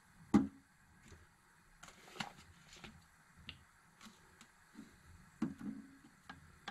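Irregular light knocks and clicks: one sharper knock just after the start, then a scatter of softer taps, with a small cluster of knocks about five and a half seconds in.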